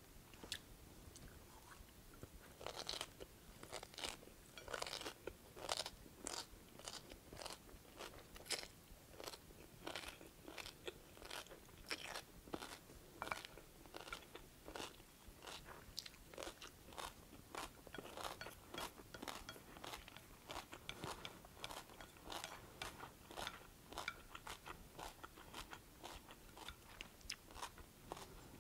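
A person chewing mouthfuls of stir-fried spiralized kohlrabi noodles with carrots and bean sprouts: a steady run of crisp crunches, two or three a second, starting about two seconds in.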